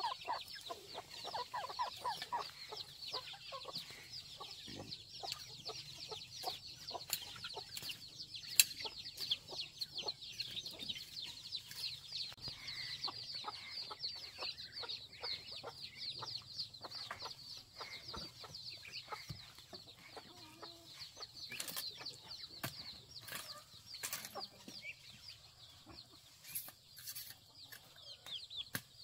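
Chickens clucking, with a continuous chorus of high, short, falling peeps, and scattered sharp knocks and scrapes, more of them in the second half.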